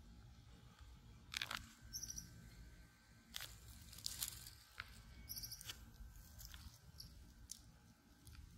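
Faint scattered clicks and soft smacks of a baby capuchin monkey mouthing and chewing a peeled banana. A few brief high chirps sound about two seconds and five seconds in.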